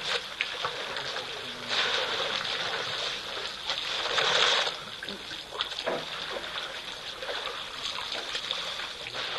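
African elephants drinking and splashing at a waterhole: steady water splashing and trickling, with louder surges of splashing about two seconds in and again around four seconds in.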